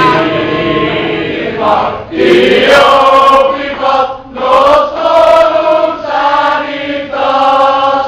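Group singing: many voices singing a song together in chorus, with long held notes.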